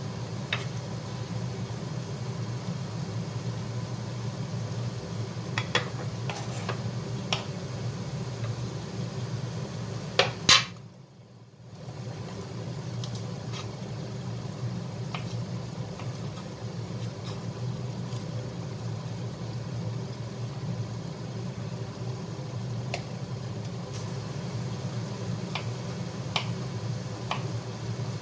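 Lidded wok simmering on a gas stove over a steady low hum, with scattered small ticks. A louder click comes about ten seconds in, after which the sound drops out for about a second.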